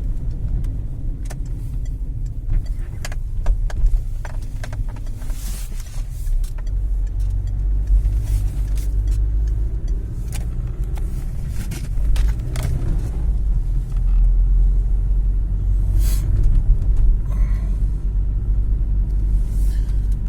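2004 Citroën C3 driving slowly on an icy street, with a steady low rumble of engine and tyres and scattered sharp clicks and knocks. It gets louder about two-thirds of the way through.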